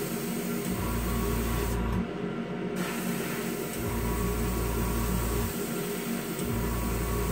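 Airbrush hissing as clear coat is sprayed, over the steady hum of the airbrush compressor and spray-booth fan. The spray hiss stops for under a second about two seconds in, and the lowest part of the hum drops out and returns several times.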